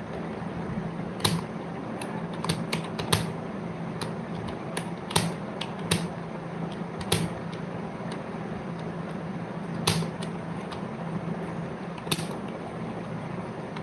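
Keys clicking on a computer keyboard during typing: irregular single keystrokes, a few sharper and louder than the rest, over a steady low hum.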